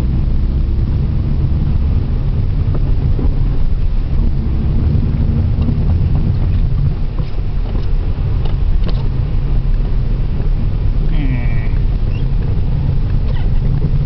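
Opel Vectra 2.5 V6 running while driving, heard from inside the cabin as a steady low rumble mixed with tyre and road noise.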